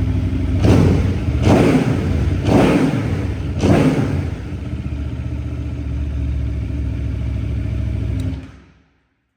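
Aprilia Tuono V4 1100 Factory's V4 engine, heard through a carbon Akrapovic exhaust, idling and given four quick throttle blips in the first four seconds. It settles back to idle and is switched off near the end.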